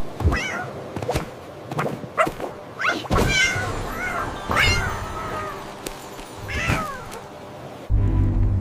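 Cat meowing several times, a string of short meows that rise and fall in pitch.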